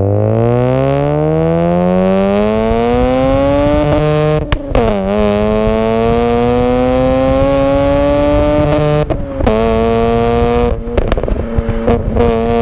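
Mazda RX-8's twin-rotor Wankel engine, heard right at the exhaust tip, pulling up through the revs with a rising note. The pitch drops sharply at two gear changes, about four and a half and nine and a half seconds in. The exhaust crackles and pops at the shifts and again near the end.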